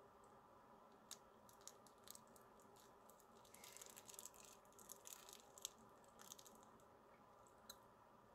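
Near silence: faint room hum with scattered soft clicks and a brief patch of light rustling near the middle.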